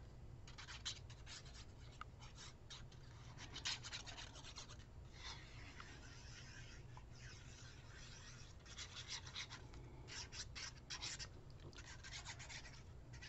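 Faint, irregular rustling and rubbing of patterned paper strips being handled while glue is applied to them.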